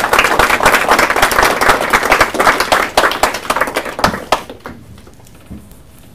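A small audience applauding, individual claps audible, dying away about four and a half seconds in.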